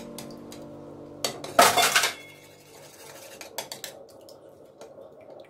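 Raw eggs being beaten in a bowl with a metal utensil: irregular scraping and clinking of metal against the bowl, loudest in a quick burst of scraping about one and a half seconds in, then lighter taps.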